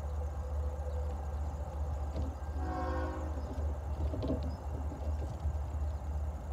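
Air horn of the distant approaching Norfolk Southern freight locomotive NS 8103, sounding one blast of about half a second around two and a half seconds in. A steady low rumble runs underneath.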